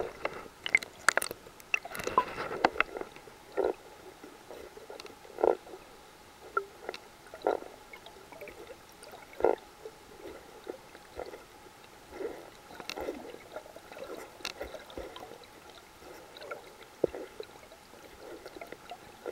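Muffled underwater swishing and gurgling as a snorkeler swims with fins, with a swish every second or two as the fins kick. There are sharper crackles in the first few seconds.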